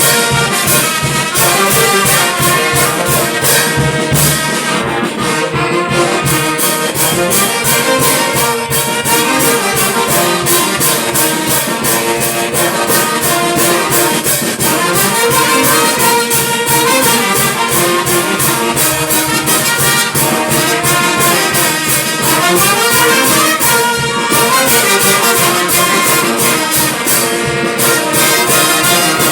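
Brass band music: trumpets and trombones playing over a steady beat.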